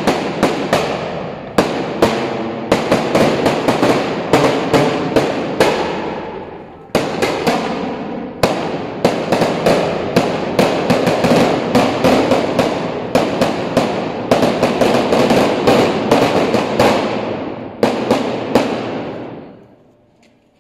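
A long string of firecrackers going off on the street: loud, rapid cracks, many a second, with a few short breaks. The bangs die out near the end.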